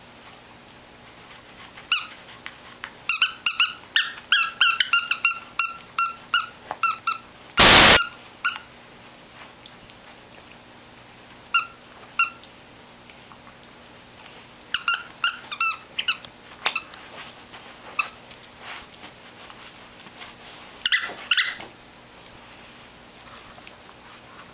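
Squeaker in a plush sock monkey dog toy being chewed by a greyhound, giving bunches of short squeaks, with the fastest run a few seconds in and more bunches later. Just before eight seconds a short, very loud burst of noise cuts in.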